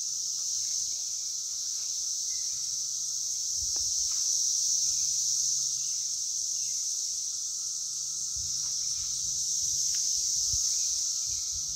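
Steady high-pitched drone of summer insects, with a few soft low thumps, likely footsteps, now and then.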